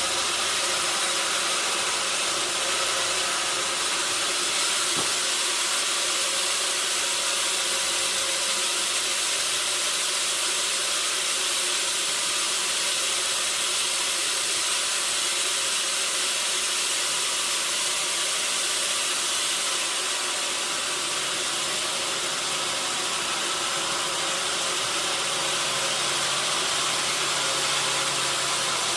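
Sawmill machinery running with a steady, even hiss and a faint hum.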